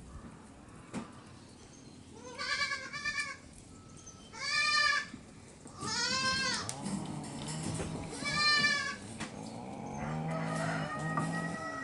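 An animal calling five times in drawn-out, wavering calls, the first two short and close together. A low steady drone comes in beneath during the second half.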